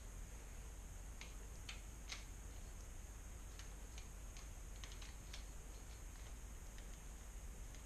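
Faint, irregular light clicks and taps of small parts being handled as a bicycle shifter is worked into place on the handlebar and an Allen wrench is fitted to its clamp screw.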